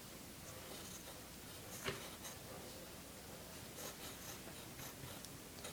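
Faint scratching of a drawing tool on paper as lines are drawn, with one small tap about two seconds in.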